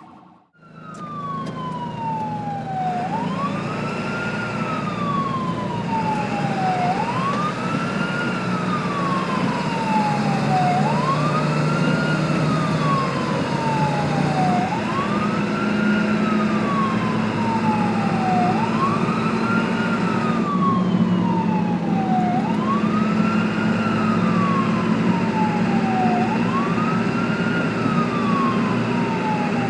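Ambulance siren wailing. Each cycle is a slow falling tone followed by a quick rise back up, repeating about every four seconds, over a low steady hum.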